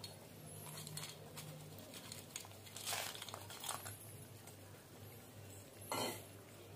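Faint scrapes and clinks of a spoon against a steel bowl as fried dried turkey berries are tipped into a clay pot of gravy. There are a few louder scrapes about three seconds in and another near the end.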